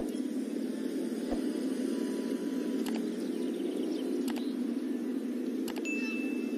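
A steady, low, muffled rumble of noise with faint clicks about every second and a half, and a thin high beep near the end.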